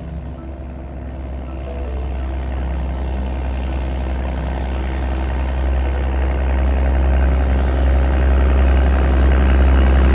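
A vehicle's engine running steadily with a deep hum, growing gradually louder.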